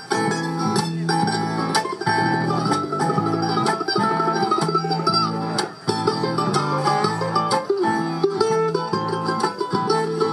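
Bluegrass band playing an instrumental break with no singing: acoustic guitar and mandolin picking over regular upright bass notes.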